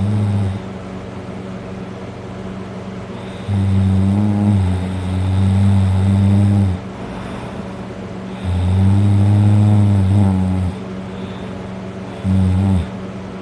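A man snoring very loudly, passed out drunk: low, buzzing snores of two to three seconds each, one every few seconds, with a short one near the end. A steady hiss fills the gaps between snores.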